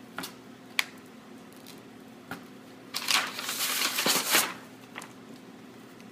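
Vinyl wrap film and its paper backing rustling and crinkling as the backing is peeled away and the film is squeegeed down onto a refrigerator door. A few light clicks come first, then about three seconds in a louder rustle that lasts about a second and a half.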